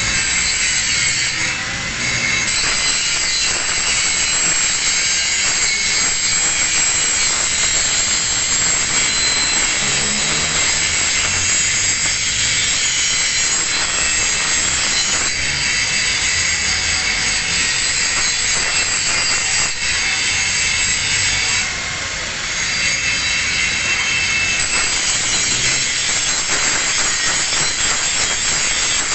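Angle grinder grinding a single bevel on a steel plate edge, a steady high-pitched grinding noise that dips briefly a couple of seconds in and again about three-quarters of the way through.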